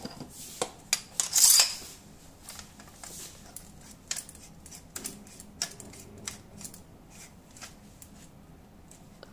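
Metal replica Anakin Skywalker lightsaber hilt being handled and put together: a loud scraping rasp about a second in, then a string of small clicks, taps and light metal scrapes as the threaded sections are turned.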